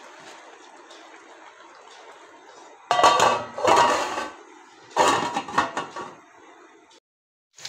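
An aluminium lid set down onto a large aluminium cooking pot: two bouts of metal clanking and scraping, about three and five seconds in, each lasting about a second, the first with a short metallic ring.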